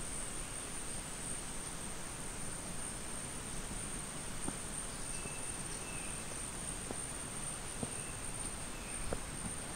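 Rainforest insects keeping up a steady high-pitched drone over a constant hiss, with a few short faint chirps and a handful of scattered soft clicks in the second half.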